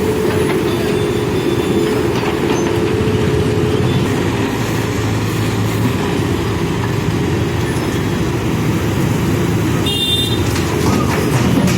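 Backhoe loader's diesel engine running steadily, with a brief high squeal about ten seconds in.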